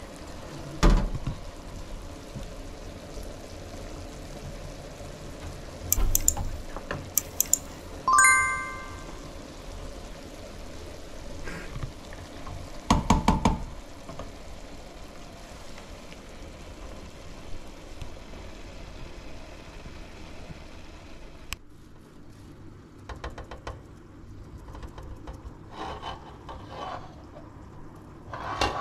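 Kitchen clatter of metal cookware: scattered knocks and clanks, a few of them in quick runs, one about eight seconds in ringing on with a metallic tone.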